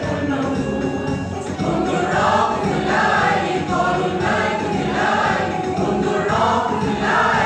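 Mixed choir of men and women singing together, its phrases pulsing in a steady rhythm and getting louder about two seconds in.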